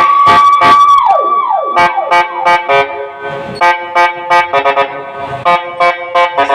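Loud music played through P Audio loudspeakers for a sound test. A siren effect holds a steady high tone and falls away about a second and a half in, then a drum beat takes over under sustained synth chords.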